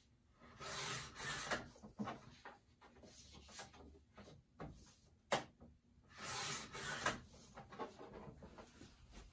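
A book page being handled and trimmed: paper rustling and scraping in bursts, with one sharp click a little past five seconds in.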